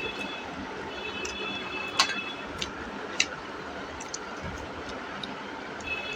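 Eating sounds: sharp mouth clicks and smacks while chewing rice and curry, the loudest about two seconds in, over a steady background hiss. A brief high-pitched tone sounds about a second in and again near the end.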